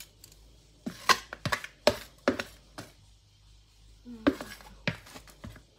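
A spoon knocking and scraping against a bowl and foil cups while spooning out a fish curry mixture: a handful of short sharp clinks in two groups.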